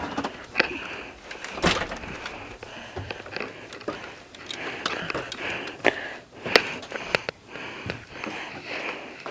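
Irregular knocks and clicks from a person moving through a small room, a few of them sharp and loud, over breathy noise close to the microphone.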